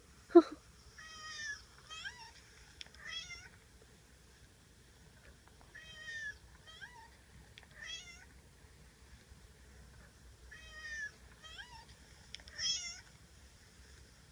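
Domestic cat meowing repeatedly: about nine short, wavering meows spread out with pauses between them, and one brief, louder falling cry about half a second in.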